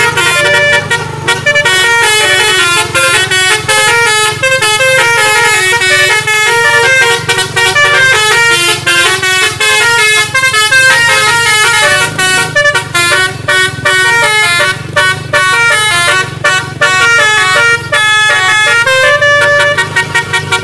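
Bus 'telolet basuri' multi-tone musical horn playing a fast melody of short notes, phrase after phrase with brief breaks between.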